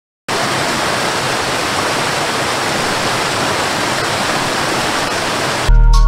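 Waterfall cascading over rocks: a steady, even rush of falling water that starts abruptly just after the beginning and cuts off near the end.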